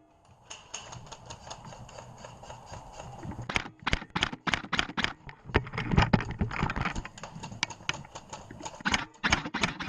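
Airsoft rifles firing: a run of sharp, irregular clacks and cracks starting about three and a half seconds in.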